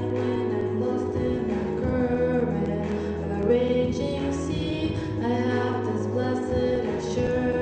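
Female voice singing a song with instrumental accompaniment, held low bass notes underneath the melody.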